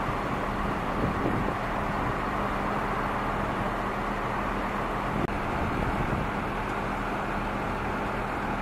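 A vehicle engine running steadily, with a constant hum, and a short click about five seconds in.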